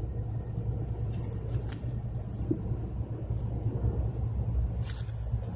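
Steady low rumble, with a few faint short clicks about two seconds in and again near the end.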